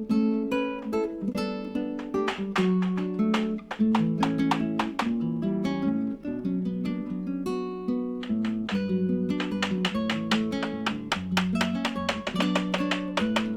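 Background music: a strummed and plucked acoustic guitar playing a quick rhythmic piece.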